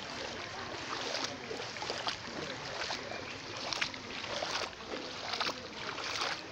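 Flood water sloshing and splashing as something moves forward through it, with irregular splashes about once or twice a second.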